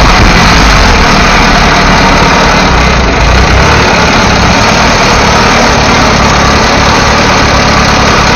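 Motorcycle engine running loud and close, heard from its sidecar, with a dense steady rumble; the deepest part of the rumble eases about three and a half seconds in as the machine pulls up.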